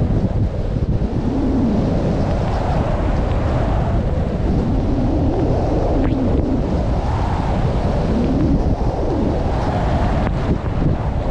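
Wind buffeting the microphone of a helmet or body camera on a skier going downhill at around 30 mph: a loud, steady rumble with a whoosh that rises and falls, mixed with skis sliding over snow.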